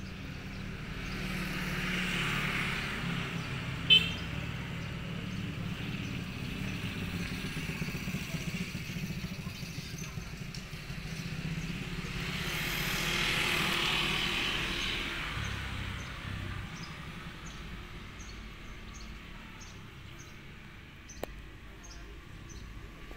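Road vehicles passing by, one about two seconds in and a louder one around thirteen seconds, each swelling and fading over a few seconds above a steady low rumble. A single sharp click about four seconds in.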